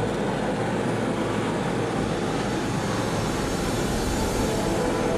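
Steady engine drone of an aircraft in flight, an even rumbling noise with faint steady tones running through it.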